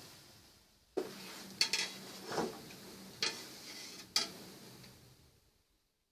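A metal utensil stirring and clinking against a pot of rendering pork lard, about five sharp clinks over a steady hiss that fades out near the end.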